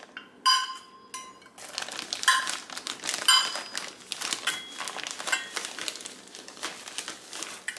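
Plastic bag of brown sugar crinkling and rustling as a metal measuring cup scoops and packs the sugar, with three short ringing clinks of the metal cup in the first few seconds.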